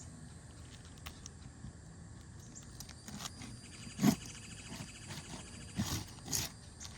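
A roofing snake prying and scraping under asphalt shingles, breaking their adhesive seal strips. There is a rasping stretch, a sharp crack about four seconds in and two more loud scrapes near six seconds.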